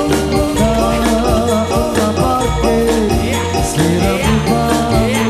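Background music: a melody over bass and a steady beat.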